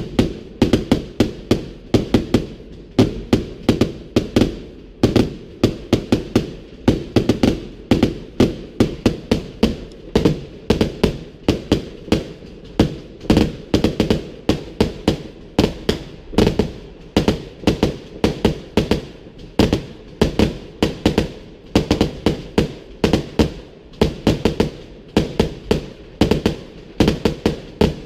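Fireworks going off in an unbroken series of sharp bangs, about three or four a second.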